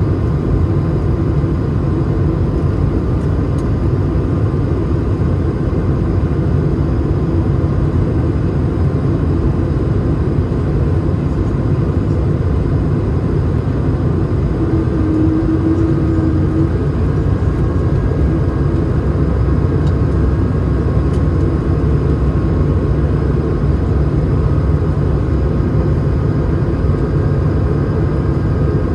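Airbus A220 cabin noise from a window seat: the steady rumble of the Pratt & Whitney PW1500G geared turbofans and airflow, with faint steady engine tones, during the landing approach. A short hum rises out of it about halfway through.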